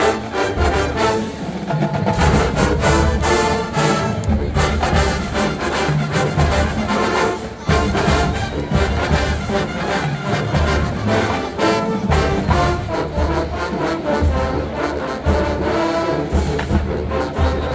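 College marching band playing, with a full brass section of trombones and trumpets over the drumline and a steady, pulsing low beat.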